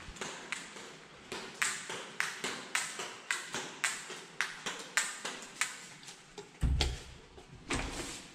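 Footsteps on a polished stone hallway floor, sharp even steps at about three a second. Near the end comes a low thump as the glass-panelled double door is reached and pushed open.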